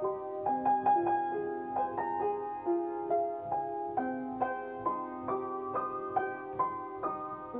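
Upright piano played in a music-box style: a melody of separate struck notes over lower held notes, each note ringing on as the next is played.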